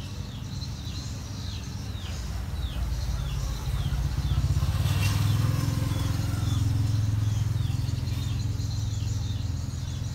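Low engine rumble from a vehicle such as a motorcycle, swelling through the middle and easing off again, with a bird giving short falling chirps about twice a second.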